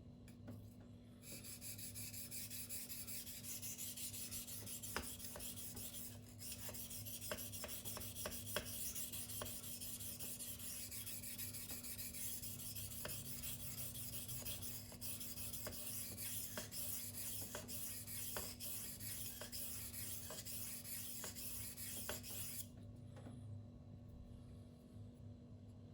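Steel blade of a Spyderco Tenacious knife (8Cr13MoV) stroked freehand across a silicon carbide whetstone: a continuous gritty scraping with light clicks. It starts about a second in, breaks off briefly around six seconds, and stops a few seconds before the end.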